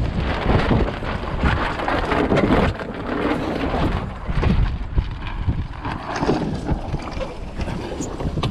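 Wind buffeting the microphone and water rushing along a small open sailing boat's hull. There are irregular knocks and rustles as the fallen action camera shifts about on the cockpit floor.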